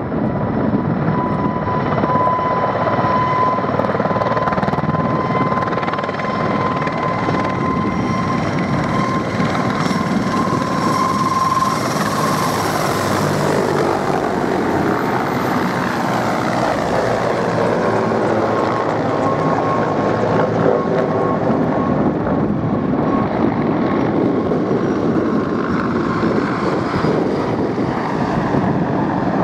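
A formation of military helicopters, Mi-8s among them, flying past: a steady heavy rotor and turbine noise with a high turbine whine. The whine climbs slightly as they come overhead about halfway through, then falls in pitch as they pass.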